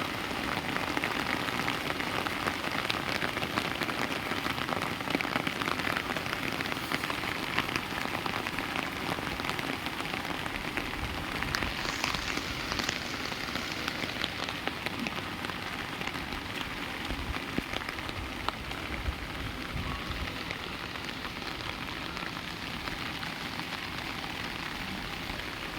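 Heavy rain falling steadily, with many separate drop strikes heard in the hiss; it eases a little in the second half.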